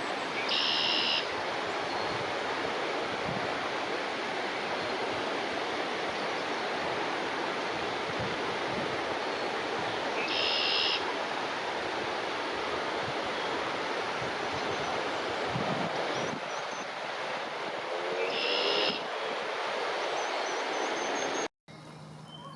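Steady rushing outdoor noise, with a small songbird's short, high, buzzy trill sounding three times, each under a second and roughly eight to nine seconds apart. Near the end the sound cuts off abruptly and comes back much quieter.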